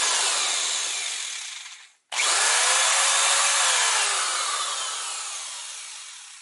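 Electric drill running at full speed, then winding down to a stop about two seconds in. It starts again abruptly right after and runs before winding down slowly near the end.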